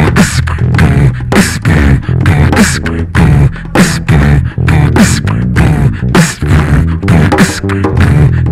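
Beatboxing into a microphone: a steady rhythmic beat of vocal kick, snare and hi-hat sounds over a low sustained bass.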